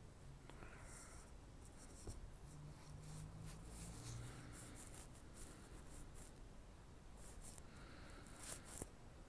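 Near silence: faint low room hum with soft, scratchy rustling and a few light clicks, the sharpest about two seconds in and near the end.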